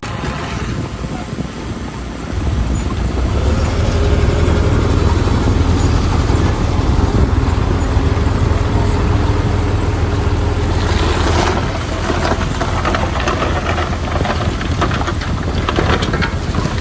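Heavy diesel engine of earthmoving machinery running steadily; its note grows louder about two seconds in. From about eleven seconds in, a rough clattering joins it.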